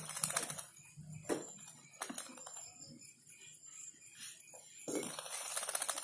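White-rumped shama fluttering and hopping in its wire cage: several bursts of rapid rattling, the longest near the start and another about five seconds in.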